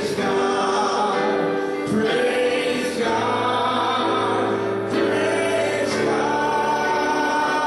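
A group of voices singing a gospel worship song with instrumental accompaniment, in held notes that change roughly every second, with a few sharp beats.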